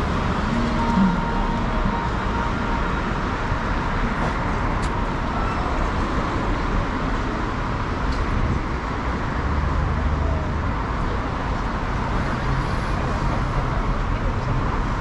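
Steady traffic noise of a busy city street, with cars and buses running past and a continuous low rumble.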